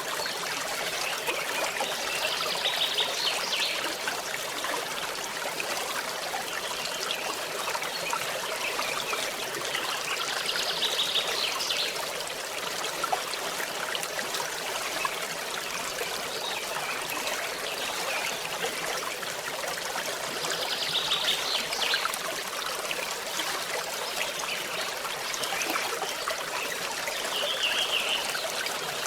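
A small forest stream trickling steadily. A short, high trill sounds over it four times.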